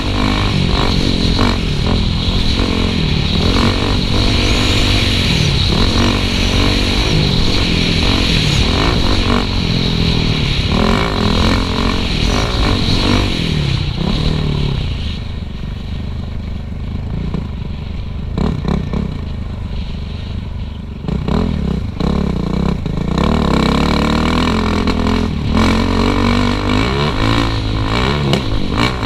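Suzuki RM-Z450 single-cylinder four-stroke dirt bike engine revving up and down as it is ridden on a trail, with knocks and rattles. About halfway through, the throttle eases off and the engine goes quieter for several seconds, then it revs hard again.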